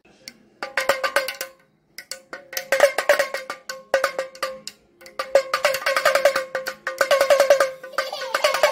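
Plastic toy damru (pellet drum rattle) twirled back and forth, its strikers hitting the drumheads in rapid clicking strokes with a ringing tone. It plays in bursts, with short pauses about two and five seconds in.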